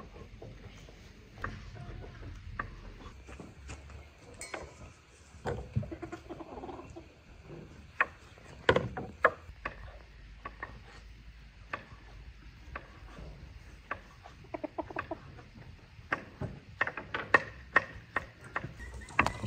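White-crested black Polish chickens pecking at food on hard dirt ground, with a scatter of sharp pecking taps and a few short, soft clucks.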